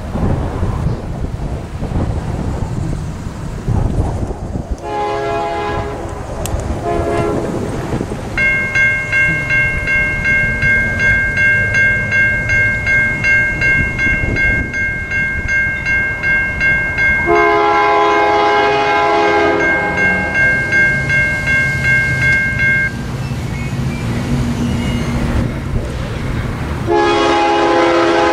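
Locomotive air horn sounding for a grade crossing: two short blasts about five seconds in, a long blast past the middle and another long one near the end, over the rumble of rail traffic. Between them the crossing's warning bell rings steadily, about one and a half strikes a second, and stops a few seconds before the last blast.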